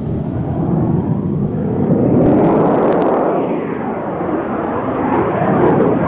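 Jet fighter flying a display pass overhead: loud, rushing jet engine noise that swells over the first two seconds and then holds, with a sweeping, phasing quality as the aircraft moves across.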